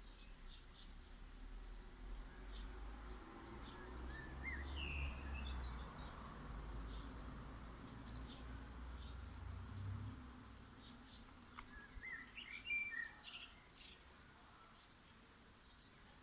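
Small garden birds chirping, with many short high calls throughout and two brief warbling song phrases, the louder one a few seconds before the end. A faint low rumble underlies the first two thirds.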